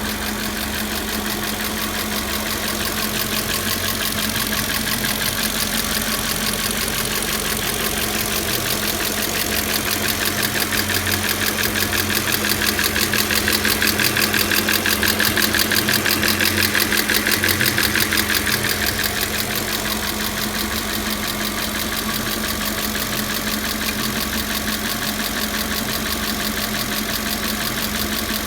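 The 4.2-litre V8 engine of a 2000 Audi A6 running steadily, with a rapid, even ticking over the engine note. The ticking grows louder for several seconds midway, then eases back.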